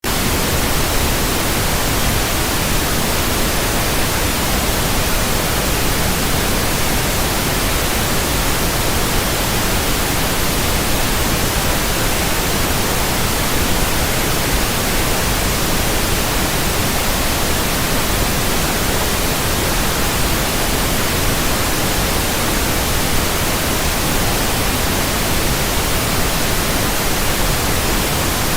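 Loud, steady static: an even hiss of white noise across the whole range, starting abruptly and holding unchanged.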